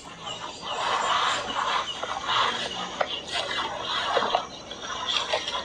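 Footsteps and rustling through tall grass and brush: a hiker pushing through vegetation, with irregular swishes and crackles about every half second.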